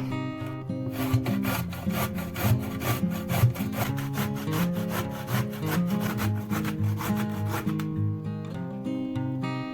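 Zucchini being grated by hand on a grater: quick, even scraping strokes, about five a second, that start about a second in and stop near the end. Acoustic guitar music plays underneath.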